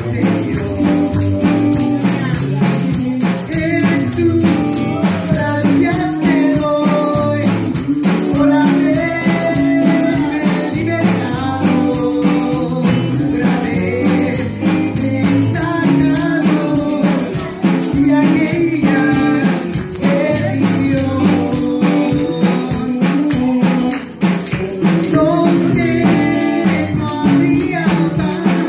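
A woman singing a church worship song into a microphone, accompanied by electric guitar, with a steady high rhythmic shaking keeping the beat.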